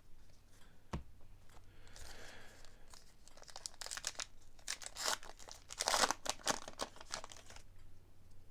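A baseball card pack wrapper being torn open and crinkled by hand, a rapid crackle that is loudest about six seconds in, after a single light knock about a second in.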